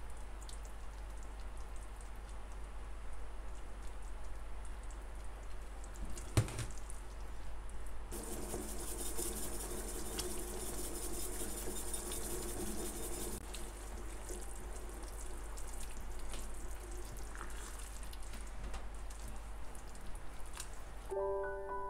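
Tomato sauce cooking in a non-stick frying pan: wet, liquid sounds as canned tomato sauce is poured in and the sauce simmers and is stirred. A single sharp knock comes about six seconds in.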